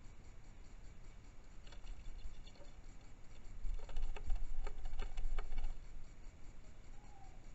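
Red-whiskered bulbul attacking its own reflection in a car's wing mirror: a quick run of sharp taps and wing flutter against the mirror, starting about four seconds in and lasting about two seconds.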